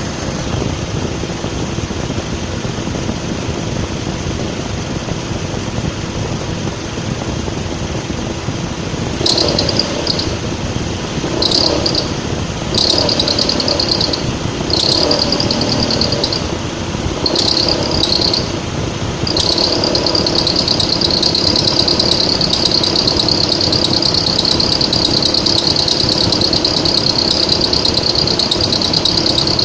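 Mitsubishi ASX 1.8 engine running with its accessory drive belt whistling. A high whistle comes and goes in short stretches from about nine seconds in, then holds steadily for the last ten seconds. This is the belt whistle that shows with the engine warm and the air conditioning on at about 1100–1200 rpm, and that was cured by replacing the alternator with one that has an overrunning clutch pulley.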